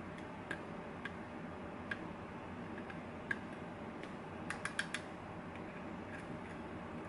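Small, sharp metallic clicks of a diamond lock pick working the pins inside a pin-tumbler lock: scattered single clicks about once a second, with a quick run of four clicks a little before the fifth second, over a faint steady hum.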